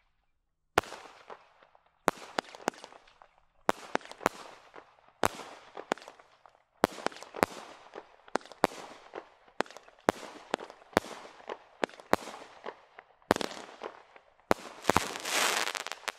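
Standard Fireworks 'Avatar' multi-shot firework cake firing: a quick series of sharp bangs, one or two a second, starting about a second in, each followed by a fading fizzing crackle. Near the end comes a denser crackle, which then dies away.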